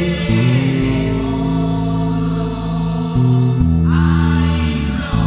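Background music: a choir singing long, held chords over sustained low notes, the chord changing a few times.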